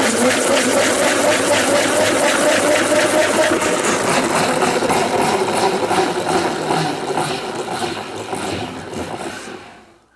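Plastic salad spinner being spun hard, a steady whirring with a fast clicking rattle. The pitch holds for most of the spin, then drops as the basket slows and runs down, stopping just before the end.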